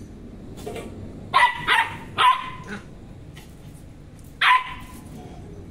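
Dog barking in play: three quick sharp barks a little over a second in, then a single bark about three seconds in.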